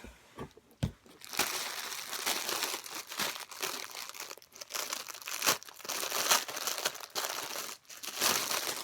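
Packaging being crinkled and torn open by hand, with a few light knocks at first and then a long stretch of uneven rustling and crackling as the parcel is unwrapped.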